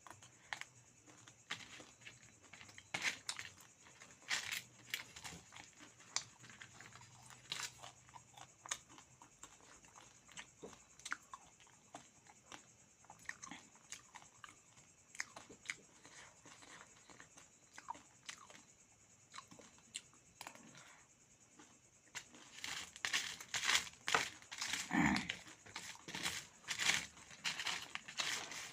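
A person chewing and crunching food close to the microphone, with scattered sharp crunches and mouth clicks that come thicker and louder in the last few seconds.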